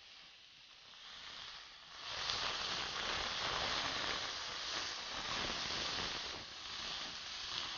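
Raw beef cubes sizzling in hot oil in a frying pan as they sear, moved about with a wooden spatula. The sizzle starts low and swells to a steady hiss about two seconds in.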